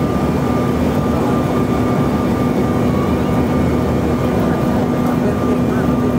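Cabin noise inside a Bombardier CRJ-900 regional jet on landing approach: a steady rush of engine and airflow noise with a steady low hum and a fainter, higher steady tone. The jet's engines are mounted at the rear, beside the aft cabin.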